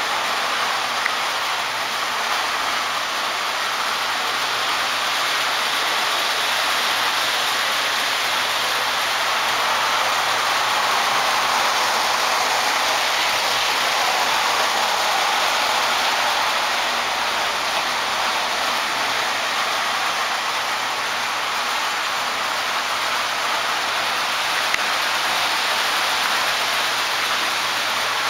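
Several O-gauge electric model trains running at once on three-rail metal track: a steady, even whir of wheels and motors with no break.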